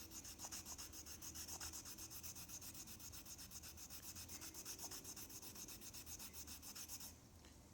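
Stropping compound being rubbed onto a leather strop in fast, even back-and-forth strokes, faint, stopping about seven seconds in.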